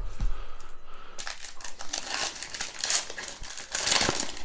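Foil wrapper of a Prizm football value pack crinkling as gloved hands tear it open, the crackling getting busier from about a second in.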